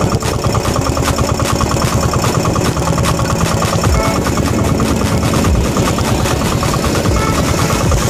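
Engine of a motorized outrigger fishing boat running steadily with a fast, even beat.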